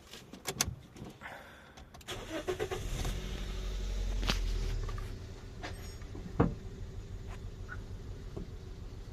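A few clicks, then a Toyota Yaris engine cranks and starts about two seconds in. Its speed rises, then drops back to an idle that runs rough, with one sharp knock a little after six seconds: the engine has a misfire on cylinder 3.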